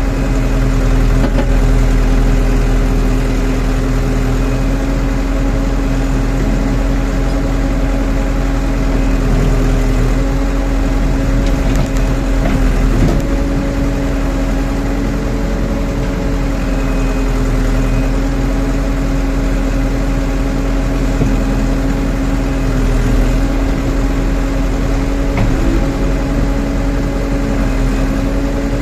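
Diesel engine of a Rondon backhoe loader running steadily under work, its pitch dipping and recovering slightly at times, with a few faint knocks.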